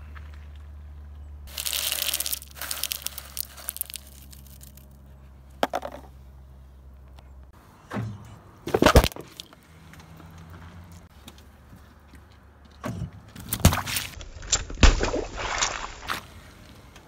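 A car tyre rolling over and crushing things on asphalt: crunching of candy-coated chocolates about two seconds in, over a low engine hum. A loud burst about nine seconds in as a cardboard juice carton gives way, then a run of cracks and pops from about thirteen seconds in as a carton of tomato juice is flattened and splits.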